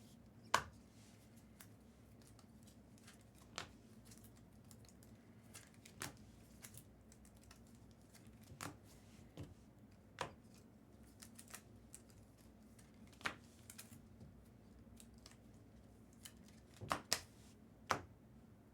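Trading-card packs and cards being handled: scattered short clicks and snaps at irregular intervals, with a few louder ones near the end.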